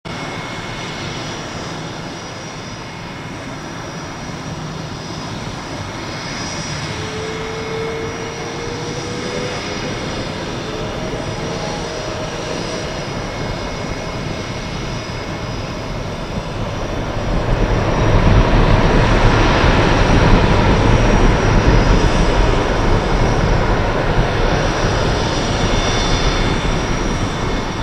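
Airbus A380's four turbofan engines running steadily with a high whine. About two thirds of the way through they spool up noticeably louder to takeoff thrust as the takeoff roll begins.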